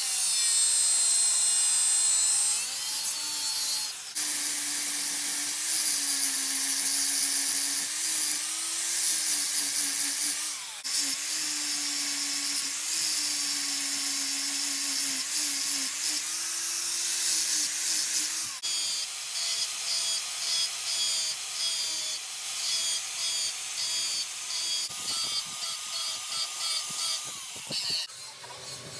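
Angle grinder with an abrasive disc grinding a steel keris blade: the motor's steady whine under the hiss of the disc on the steel. In the second half the grinding comes in short repeated strokes, roughly two a second.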